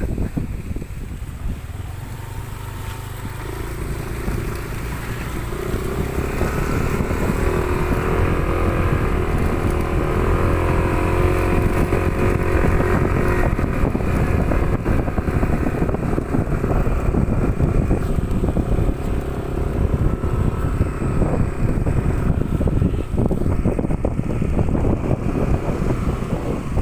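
An engine hums steadily for about ten seconds, starting a few seconds in, over a low rumble of wind on the microphone.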